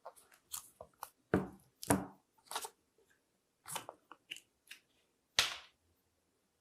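A run of short crinkling and tapping handling noises, about a dozen in six seconds, as a phone's box and packaging are opened and handled. The sounds stop about a second before the end.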